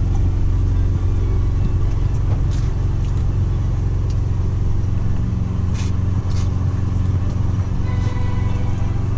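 Semi truck's diesel engine idling steadily, heard from inside the cab. A few light clicks come through about two and a half and six seconds in.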